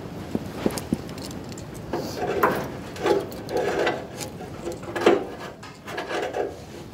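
Irregular metal clinks, knocks and scrapes as three-point hitch parts are handled and fitted at the rear of a garden tractor: a few sharp clicks, then a busier run of knocking and scraping from about two seconds in.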